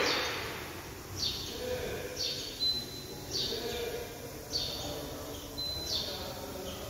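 A bird chirping repeatedly: short high calls that slide down in pitch, about one a second, with a couple of brief steady whistled notes between them.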